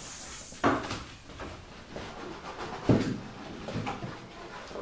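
Objects being handled on a tabletop: a brief hiss at the start, then two knocks, the louder one about three seconds in.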